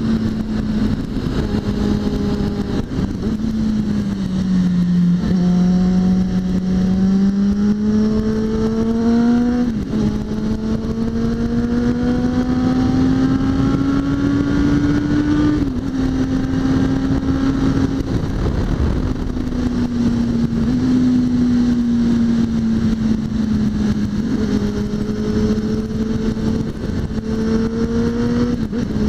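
Suzuki GSX650F's inline-four engine running under way, with wind rushing over the microphone. Its pitch climbs steadily under throttle from about five to sixteen seconds in, dropping sharply twice as it shifts up, then settles back to a steady cruise.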